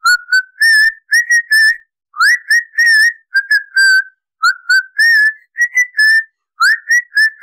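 A person whistling a tune: a quick string of short notes, some sliding up into the pitch, in phrases with brief gaps between them.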